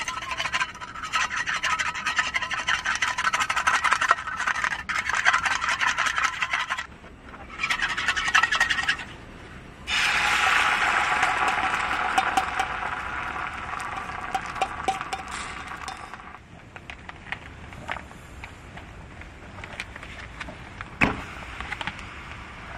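Egg being beaten in a stainless steel cup with a wooden utensil: fast scraping strokes against the metal, in two spells. About ten seconds in, the beaten egg is poured into a hot frying pan on a camp gas stove and sizzles loudly, fading over several seconds, followed by a single sharp knock near the end.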